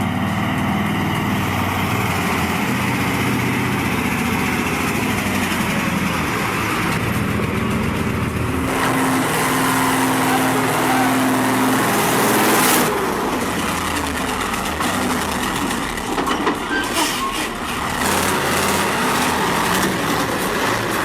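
Heavy truck engines running and labouring, with the engine note changing abruptly at cuts about 9 and 13 seconds in.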